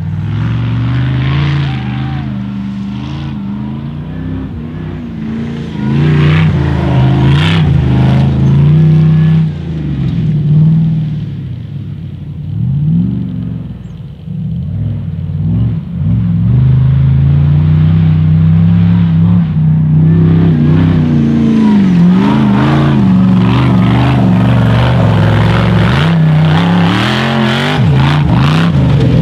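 Ultra4 off-road race car's engine revving hard through a dirt track, its pitch climbing and dropping repeatedly as the throttle is worked on and off. It fades somewhat in the middle and comes back loud from about halfway.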